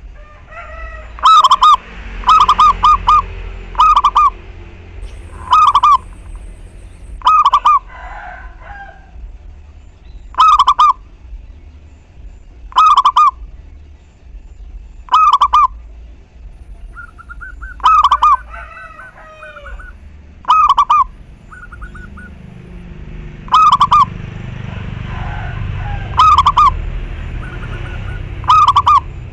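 Zebra dove (perkutut) singing steadily, repeating its short cooing phrase about every two to three seconds, about a dozen times. Fainter chirps from other small birds come in around the middle, over a low background rumble.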